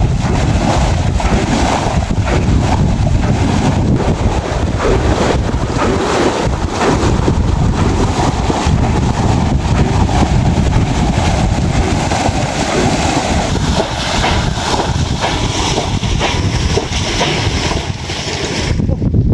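Continuous splashing and sloshing of muddy water as several men bail out a shallow canal by hand, scooping and throwing water to drain it for fish.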